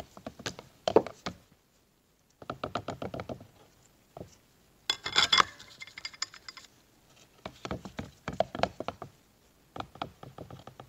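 Steel clutch plates and friction discs clicking and knocking against each other and the drum as they are fitted into a TH350 transmission clutch drum. The sound comes in several short bursts of rapid clicks with pauses between them.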